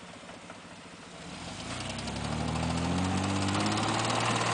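Off-road truck engine idling, then revving up about a second and a half in and holding at high revs, with a loud rushing noise over it.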